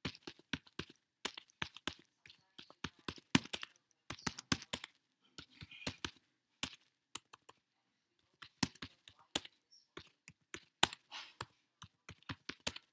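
Typing on a computer keyboard: irregular key clicks in quick runs, with a pause of about a second and a half in the middle.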